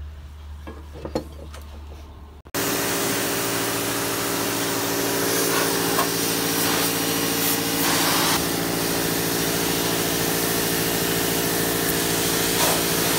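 A few faint knocks of metal being handled. About two and a half seconds in, a pressure washer cuts in and runs steadily: the pump hums under the hiss of the jet blasting water through a hollow aluminium boat beam.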